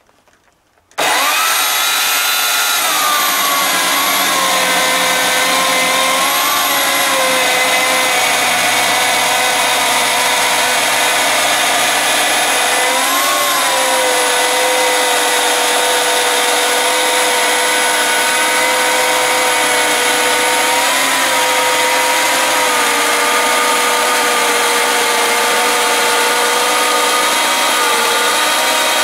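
Oregon CS1500 corded electric chainsaw starts abruptly about a second in and runs steadily as it rips along a log in a chainsaw mill. Its motor whine drops in pitch as the chain bites into the wood, then wavers a few times under the load of the cut.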